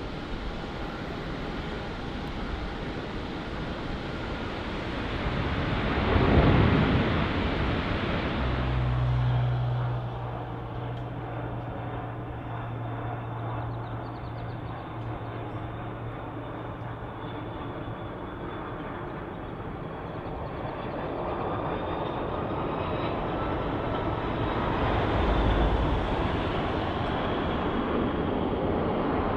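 Jet airliner engines close by, a broad rush of engine noise that swells to a peak about six seconds in, carries a low steady hum for several seconds after, and swells again near the end.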